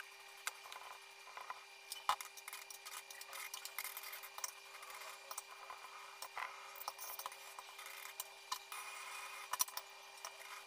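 A spatula scraping and clicking as it spreads and smooths whipped cream over a cake, with many small irregular clicks and rubbing sounds over a steady hum.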